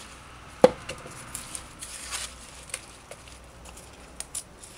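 Callaloo stems being snapped and their skin stripped by hand: small crisp snaps and leafy rustling, with one sharp click about two-thirds of a second in, the loudest sound.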